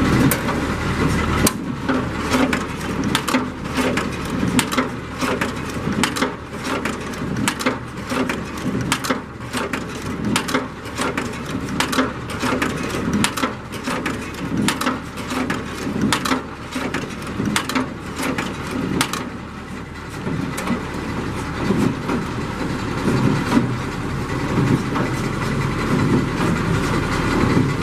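Massey Ferguson 20 hay baler running behind a tractor, baling hay, with many sharp cracks and crunches over the steady engine drone. The cracks are densest until about two-thirds of the way through, then thin out.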